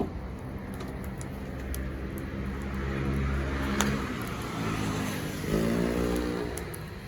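A motor vehicle engine running nearby, its pitch rising briefly about three-quarters of the way through as it speeds up, over a few sharp crackles from a wood fire.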